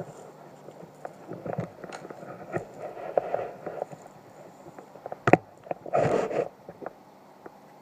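Irregular rustling and scraping with small clicks, a single sharp knock about five seconds in, then a brief burst of rustling just after it.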